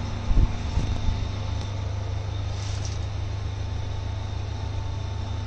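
Steady low machine hum with a faint constant higher whine, and a couple of soft low thumps about half a second in.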